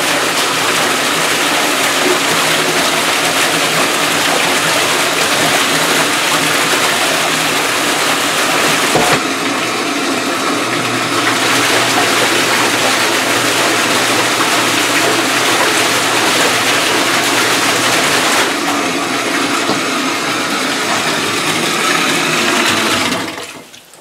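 Submersible sump pump running under water, its discharge spraying water up and splashing back down into a bathtub in a steady loud rush. The sound cuts off near the end.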